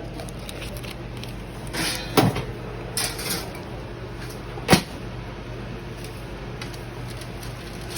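Two sharp knocks, about two and a half seconds apart, over a steady low hum, with some lighter rustling between them.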